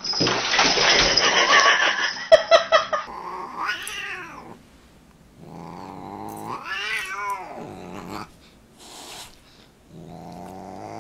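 Siamese cat yowling at a dog: long drawn-out yowls that rise and fall in pitch, three of them. The first three seconds hold a loud rough noise instead.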